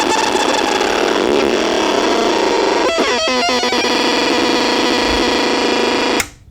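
Harsh, distorted synthesizer-like electronic noise with several steady tones, a quick run of falling pitch sweeps about three seconds in, cutting off abruptly near the end.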